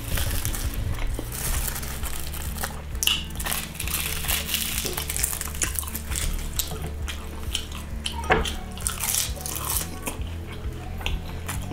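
Close-miked eating sounds: dried seaweed sheets crackling in the hands, clicks and wet smacks as salmon and rice are dipped in sauce and chewed. Background music runs underneath.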